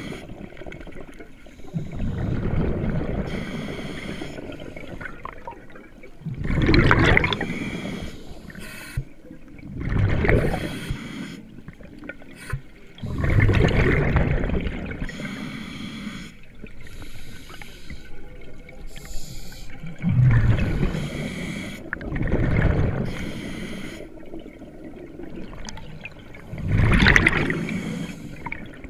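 Scuba diver breathing through a regulator underwater: a gurgling rush of exhaled bubbles every few seconds, with quieter inhalations between them.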